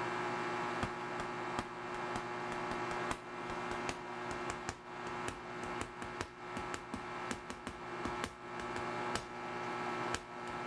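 Microwave oven running with a steady hum while heating burritos, with irregular sharp clicks and pops through it, coming several a second by the middle.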